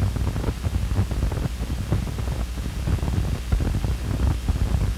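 Steady hiss and low hum with frequent crackles and clicks from an old, worn film soundtrack; no speech or music.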